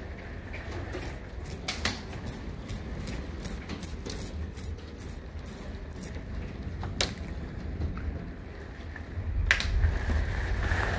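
Storm heard from indoors: a steady low rumble of wind with sharp ticks of wind-driven rain striking the window glass, coming thick for the first few seconds and more sparsely after, and the storm swelling louder near the end.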